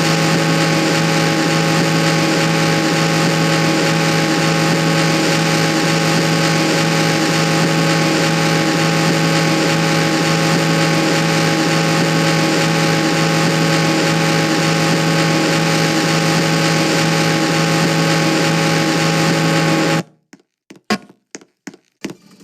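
Ceiling fan running at speed: a loud, even whir with a steady motor hum, which cuts off abruptly about 20 seconds in, followed by a few sharp clicks.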